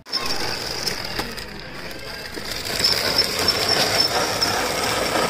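Hard plastic wheels of a children's ride-on toy car rolling and rattling steadily over rough concrete as the car is pushed, a little louder about halfway through.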